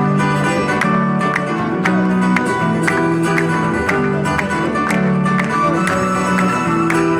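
Live Amazigh (Berber) music in an instrumental passage between sung lines: acoustic guitar strummed in a steady rhythm over held keyboard notes.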